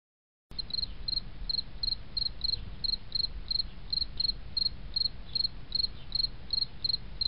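A cricket chirping in a steady, even rhythm of about three short, high chirps a second, over a low background rumble. It starts about half a second in.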